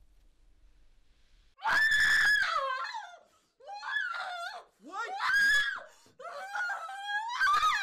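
A woman screaming four times, starting about two seconds in. Each scream is loud, high and wavering in pitch.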